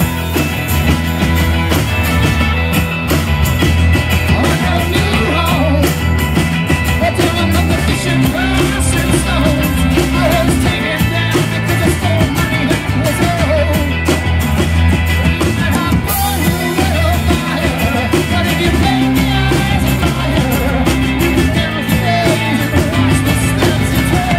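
Live rock band playing, with electric and acoustic guitars, bass and drums, and a man singing lead from about five seconds in.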